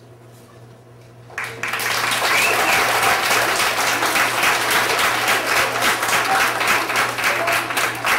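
Audience applauding, breaking out suddenly about a second in and continuing strongly with dense clapping, with a few voices calling out over it.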